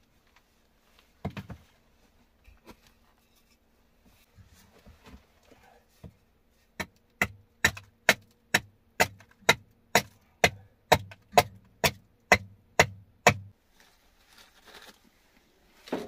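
A hatchet chopping kindling: a run of about fifteen sharp, even strikes, about two a second, starting some seven seconds in, after a few quieter knocks and rustles.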